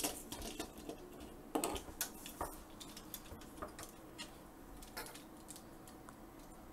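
Plastic Transformers Optimus Prime figure being handled and set upright on a tabletop: faint, scattered light clicks and taps of plastic parts, thinning out after about five seconds.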